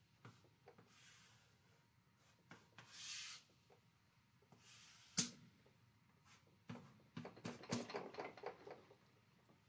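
Faint sounds of a pen or marker drawing on a board: soft rubbing strokes, a sharp tap about five seconds in, and a run of quick scratches and taps near the end.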